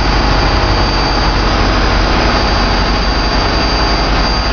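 An engine running steadily: a loud, even drone with a thin, steady high whine over it.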